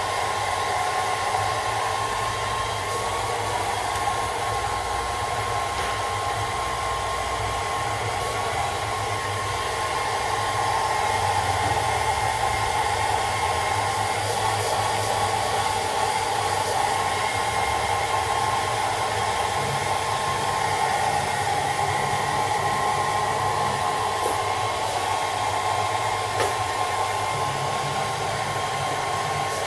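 Handheld hairdryer blowing steadily, a continuous rushing whine with a high motor tone.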